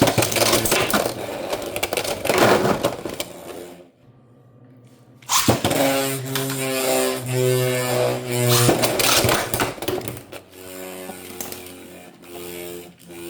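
Beyblade X spinning tops scraping and clattering against each other and the plastic stadium. The clash noise drops out briefly about four seconds in, and sustained background music chords come in over it.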